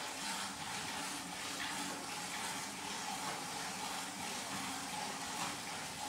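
Milk squirting into a steel pail as a water buffalo is milked by hand: a steady run of jets hitting the milk in the bucket.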